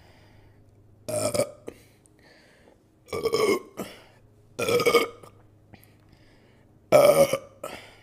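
A woman burping loudly four times, each burp under a second long and about two seconds apart; the last is the loudest.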